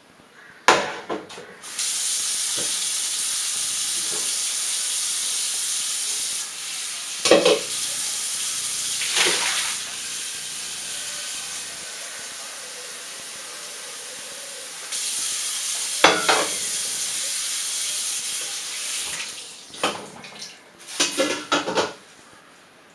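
Tap water running steadily into a stainless steel pot in a steel kitchen sink, starting suddenly about two seconds in. Metallic clanks of the pot against the sink and hob come now and then, with a quick run of them near the end.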